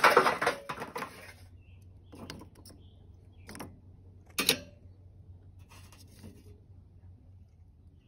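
Hickory wood chunks set down one by one on charcoal briquettes in a Weber kettle grill: a few light knocks and clatters, the loudest about four and a half seconds in. It opens with the tail of a louder, dense clatter that stops about a second and a half in.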